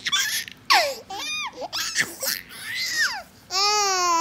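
A toddler squealing and giggling while being tickled: several short, high-pitched cries that swoop up and down, then a long wavering squeal starting near the end.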